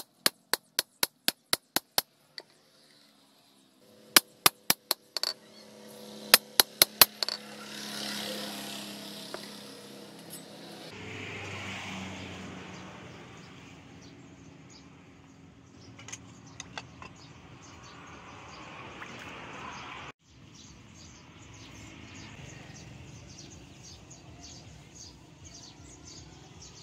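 Hand hammer striking a hot bearing-steel knife blade on a post anvil: three quick runs of sharp blows, about four a second, in the first seven seconds. After that comes a quieter stretch of work noise.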